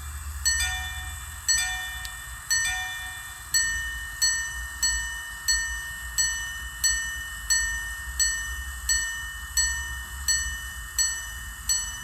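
Henry Sandoz minute repeater pocket watch chiming: its hammers strike the gongs in three quick two-note pairs for the quarters, then thirteen single high strikes about 0.7 s apart for the minutes. Together with two hour strikes just before, the repeater is telling 2:58.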